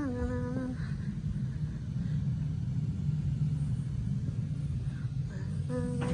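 A person humming short held notes, one at the start and a brief one near the end, over a steady low rumble.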